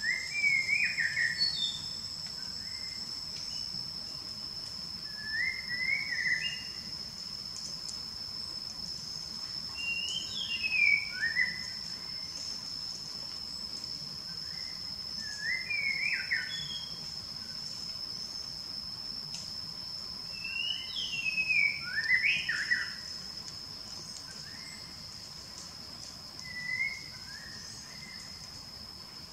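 A bird singing short phrases of quick, sliding whistled notes, repeated about every five seconds, over a steady high-pitched insect drone.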